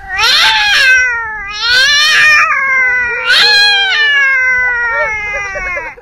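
A boy imitating a cat fight with his voice: loud, wavering caterwauling yowls in three swells, the last one drawn out and slowly falling in pitch.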